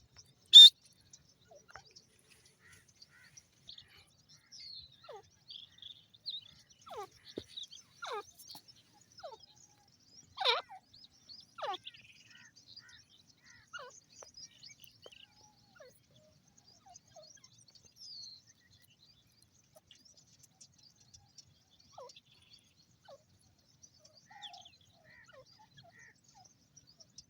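Grey francolins calling: one loud, sharp note just after the start, then scattered soft chirps and short falling notes, a little louder about ten seconds in.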